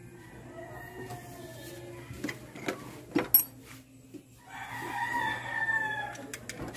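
A rooster crows once, a single long call of about two seconds near the end. It comes after a few sharp clicks, the loudest about three seconds in.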